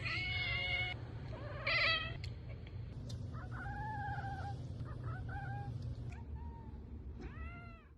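A domestic cat meowing repeatedly, about six separate meows that each rise and fall in pitch, the first and one near two seconds in the loudest, over a low steady hum.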